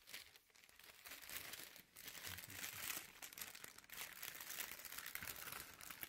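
Thin plastic packaging bag crinkling as it is handled, in irregular rustles with a short pause about two seconds in.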